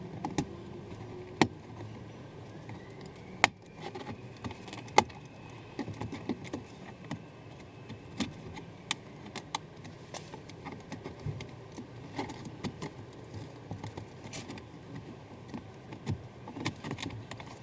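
Plastic clicks, taps and rattles of a Toyota RAV4 door's window-switch panel being pried and wiggled loose by hand, with a few sharp snaps of the trim clips, the loudest about one and a half, three and a half and five seconds in. The panel is slow to come free, held by stiff clips.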